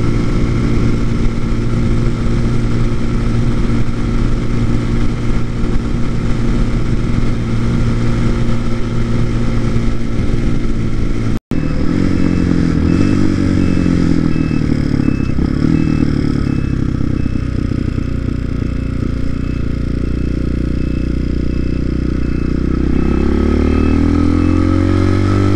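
TaoTao TBR7 motorcycle engine running at a steady cruising speed, heard from on the bike. After an instant's dropout about halfway, the engine note falls as the bike slows, holds low, then rises near the end as it accelerates in second gear. A regular beeping, likely the turn-signal buzzer, sounds through the second half.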